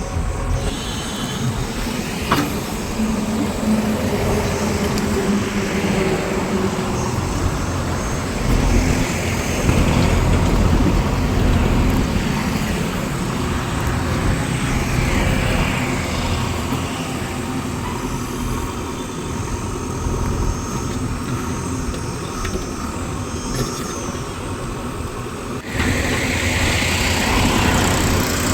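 Heavy diesel machinery running steadily with a low engine rumble, changing abruptly near the end to a louder engine sound.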